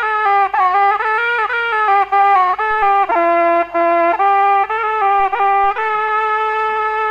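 A single wind instrument with a bright, reedy tone playing a slow melody one note at a time, with short slides between the held notes, over a faint low hum.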